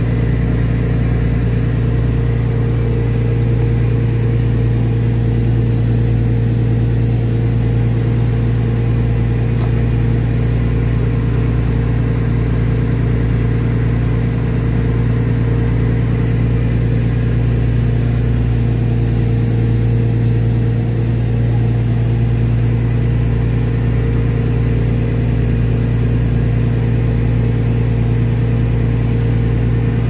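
A boat's engine running steadily under way, a low, even drone that holds the same pitch throughout, heard from on board.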